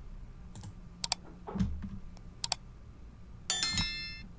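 Computer mouse clicks: two quick double clicks while walls and roofs are selected, then a short electronic ringing tone with several pitches near the end, over a faint steady hum.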